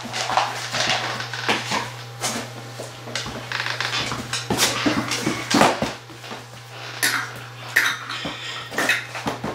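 Clinks and scrapes of a stainless steel dog bowl as it is set into a raised stand and a dog eats softened kibble from it, metal rattling irregularly against the box, over a steady low hum.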